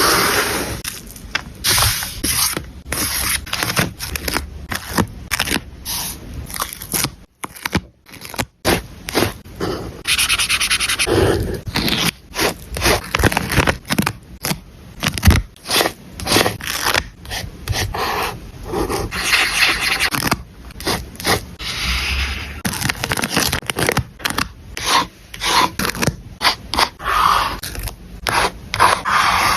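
Paper and stationery being handled while a planner page is collaged: paper rubbed and scraped in many irregular short strokes, with a brief pause about eight seconds in.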